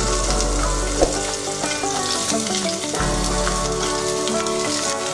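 Chopped onion frying in hot oil in a stainless-steel pot, with a steady sizzle; a single sharp knock about a second in.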